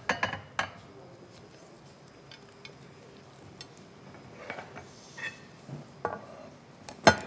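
Scattered light clinks and knocks of tableware being handled: ceramic plates and stainless-steel serving tongs set down and picked up. A quiet stretch comes in the middle, and a sharper knock comes near the end.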